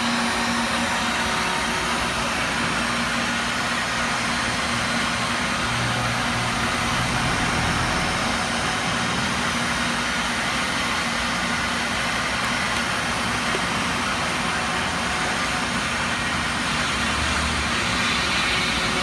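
CNC machine running with a steady whirring machine noise and a faint low hum.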